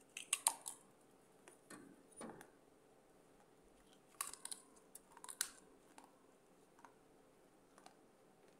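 Crisp cracking crunches of a thin piece of baked clay pot being bitten and chewed close to the microphone: a cluster of bites in the first second or so, a few more crunches around two seconds, another cluster from about four to five and a half seconds in, then a few small chewing clicks.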